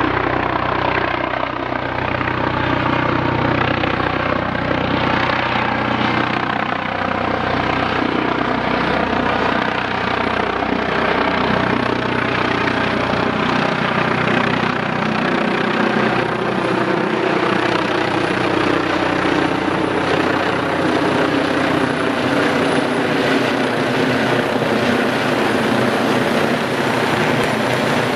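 Eurocopter EC 155 helicopter on its landing approach: twin turbines, main rotor and Fenestron tail fan running loud and steady, with a few tones sliding slowly lower through the middle as it comes in and turns.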